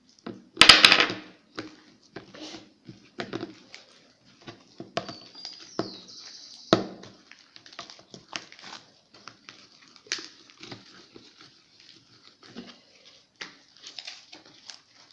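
Hands squeezing and kneading freshly made shaving-foam slime: irregular wet squelches and little popping clicks, with a loud burst about a second in.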